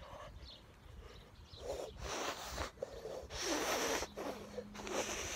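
Handling noise from a phone's microphone: three rustling, scraping bursts of the phone rubbing against a hoodie as it is carried, starting about two seconds in.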